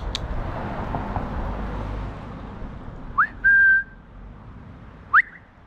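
A person whistling to call a cat. About three seconds in comes a short rising whistle, then a loud held note. Near the end there is one more quick rising whistle.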